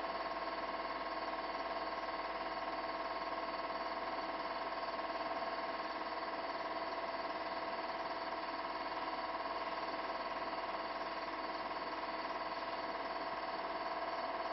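Steady machine hum with several held tones over a constant hiss, unchanging throughout.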